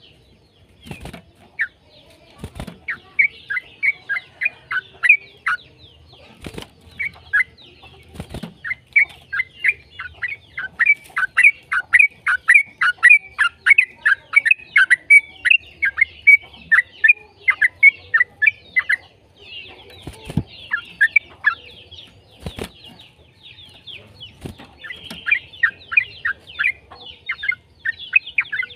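Yellow-vented bulbul (trucukan) singing its long rapid chattering song: runs of quick, sharply falling notes, about four to five a second, with short pauses between runs. A few short knocks fall in the gaps.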